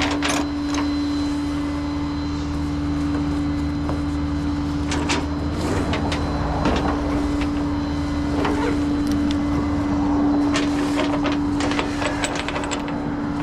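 Truck engine running steadily with a constant droning hum, with scattered sharp clicks and knocks throughout.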